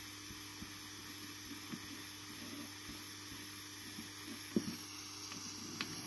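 Quiet steady hum and hiss with a few soft ticks and taps as a soldering iron tip presses a plastic cable tie into a cracked clear plastic part, melting it in to fill a hole.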